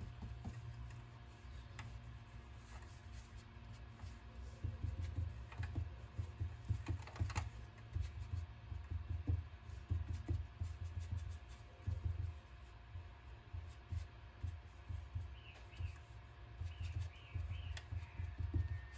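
Dry brush worked over a glued-down paper napkin on a cutting board, making soft, irregular low thumps and rubbing as it presses the napkin flat and pushes out air bubbles.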